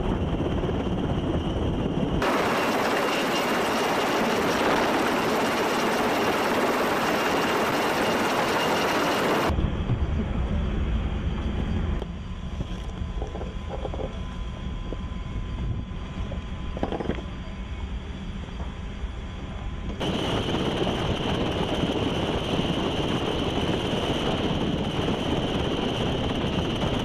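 Helicopter noise from a Navy Sea Hawk hovering low over a ship's flight deck, mixed with wind on the microphone. The sound changes abruptly several times as shots are cut together, with a quieter stretch in the middle holding a few knocks.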